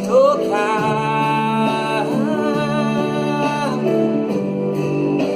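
Worship song: a singer holds one long, slightly wavering note over a steady accompaniment with guitar.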